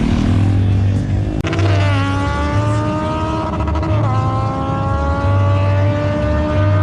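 Sport motorcycle engine at high revs, its tone sliding steadily down from about a second and a half in, jumping up again around four seconds in and sliding down once more, over a low pulsing engine rumble.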